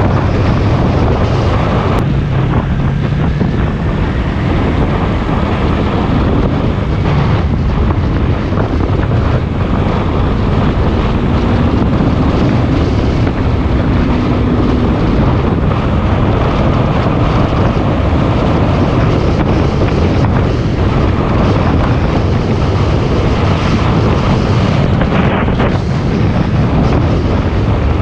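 Wind buffeting the microphone of a camera on a moving motorcycle, steady throughout, with the motorcycle's engine faintly audible underneath, its note rising slightly near the middle.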